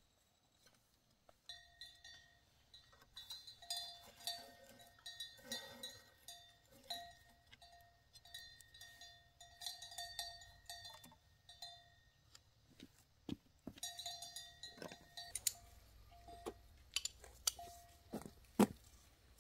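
A livestock bell clanking faintly and irregularly, in short clusters of rings at the same few pitches. Later on come several sharp knocks.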